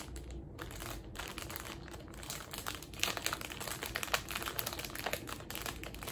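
A clear plastic wrapper on a dorayaki crinkling and crackling as hands turn it over and work it open. The crackles come thick and irregular, loudest around halfway through.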